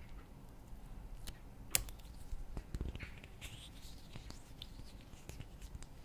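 Slime being worked by hand: faint sticky squishing with small clicks and pops, and one sharper click a little under two seconds in.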